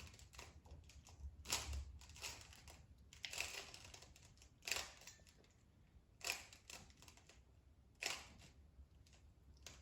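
Faint plastic clicking and rasping of a 3x3 Rubik's Cube's layers being turned, in short irregular bursts with pauses between them.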